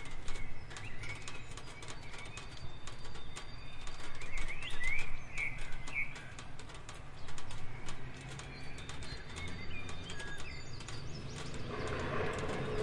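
Rain falling, with many separate drops tapping close by, and a bird chirping a few short calls in the middle and again near the end.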